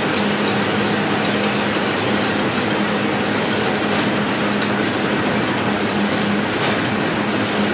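Sack-printing press running steadily: a continuous mechanical clatter over a constant hum, with faint ticks repeating at an even pace.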